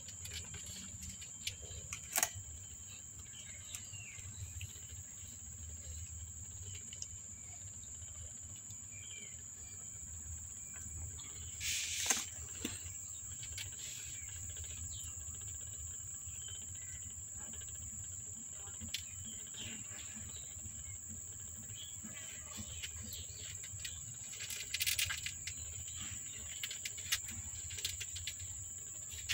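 A steady high-pitched insect-like chirring with a low background hum, faint rustles, and brief knocks about 2, 12 and 25 seconds in.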